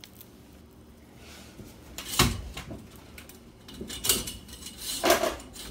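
A few brief scraping, rattling handling sounds as string and a steel fish tape are worked through a hollow roll cage tube, the loudest about two seconds in with a dull knock.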